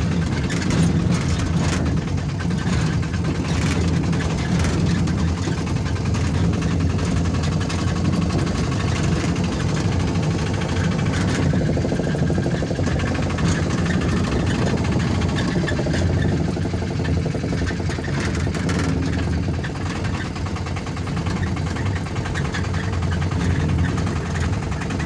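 Car engine running with road rumble, heard from inside the cabin while the car is driven: a steady low hum.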